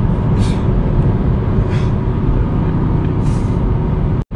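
Steady engine and road noise of a car driving at speed, heard from inside the moving car, with a deep, even rumble. The sound drops out for a moment near the end.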